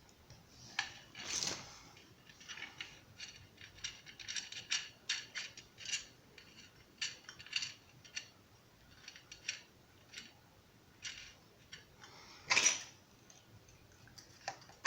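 Irregular light clicks and clinks of small metal ceiling-fan fittings being handled and fitted together by hand, with a louder clatter near the start and a sharper knock near the end.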